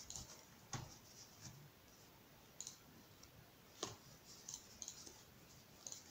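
Faint, scattered clicks and soft rustles of hands working stretchy sock-top fabric loops in finger knitting, pulling one loop through another, with several small ticks close together near the end.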